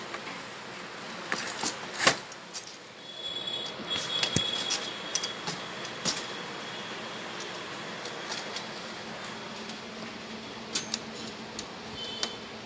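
Scattered clicks and knocks from a chrome steel-pipe salon chair frame being handled and fitted, the loudest about two seconds in, over a steady background hum.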